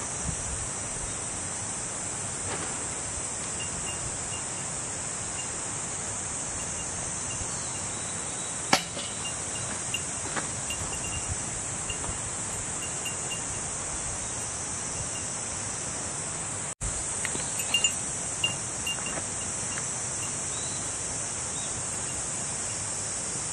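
Steady high-pitched chorus of insects. A small bell tinkles faintly now and then, and there is one sharp knock about nine seconds in.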